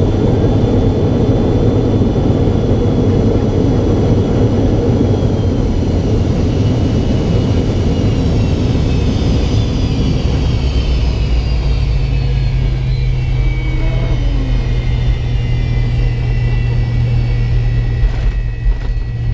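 The McDonnell Douglas MD-82's rear-mounted Pratt & Whitney JT8D turbofans are heard from the cabin beside the nacelle during the slow roll after landing. A heavy roar gives way to a whine that falls steadily in pitch over several seconds as the engines spool down toward idle. A steady low hum then remains, with a couple of knocks near the end.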